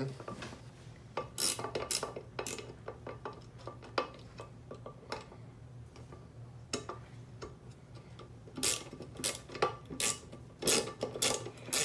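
Metal hand driver turning the handle screw of a frying pan: scattered small metallic clicks and scrapes, coming thicker about nine seconds in. The screw is hard to drive in.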